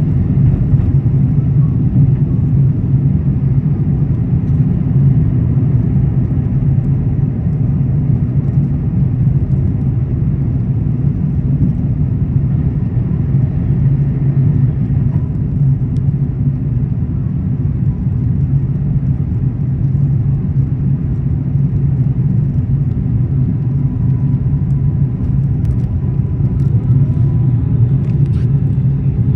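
Steady low rumble of Airbus A380 cabin noise, engine and airflow noise heard from inside the aircraft, even and unbroken throughout.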